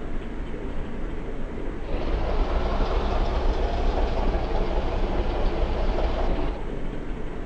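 A heavy vehicle going past close by: a steady low rumble, with a louder rushing noise that comes in about two seconds in and cuts off about a second before the end. No horn is sounded.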